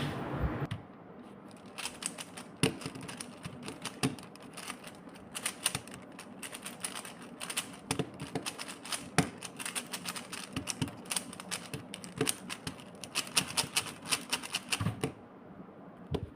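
Speedcube (Rubik's cube) being turned fast one-handed: a dense, irregular run of plastic clicks and clacks from the layers snapping round. It starts just under a second in and stops about a second before the end.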